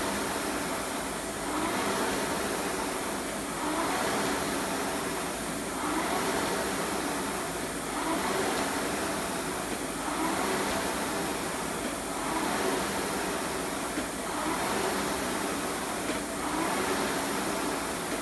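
Concept2 rowing machine's air-resistance flywheel whirring, swelling with each drive stroke and easing on the recovery, about one stroke every two seconds.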